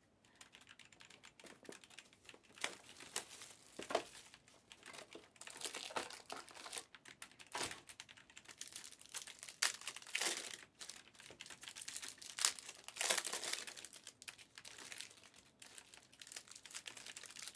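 Plastic wrapping crinkling and rustling as it is handled, in irregular bursts with sharp crackles and light clicks.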